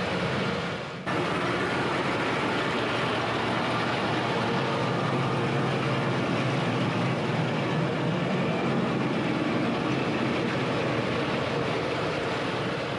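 Heavy farm machinery running steadily, the steady noise of tractor-drawn potato-digging equipment at work in the field. About a second in, the sound drops briefly, then cuts back in abruptly.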